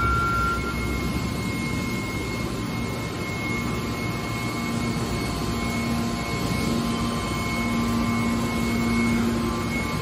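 Hydraulic metal baler's power unit (electric motor and hydraulic pump) running steadily: a continuous mechanical hum with faint steady whines, and a low hum that grows stronger about halfway through.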